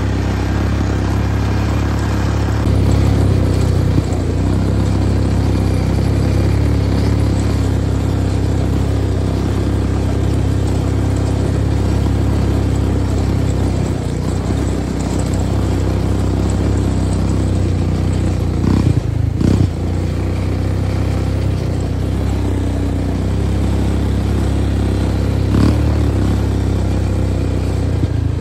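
Engine running steadily with a constant low drone, as heard riding in a motor vehicle, with a few brief knocks partway through and near the end.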